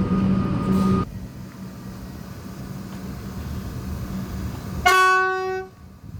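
Metro Comeng electric train: loud running noise with a steady hum that cuts off abruptly about a second in, leaving a quieter rumble. About five seconds in comes one short blast of the train's horn, a single steady note and the loudest sound.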